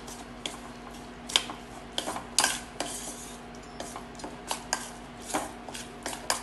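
Metal spoon stirring a thick, wet mix of chopped boiled egg and raw egg in a stainless steel bowl, with irregular scraping strokes and clinks against the bowl, about two or three a second. A faint steady hum runs underneath.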